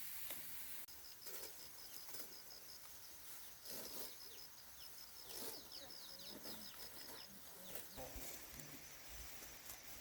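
A small bird calling faintly: two runs of rapid, evenly spaced short high notes, about six a second, with a few soft rustles between them.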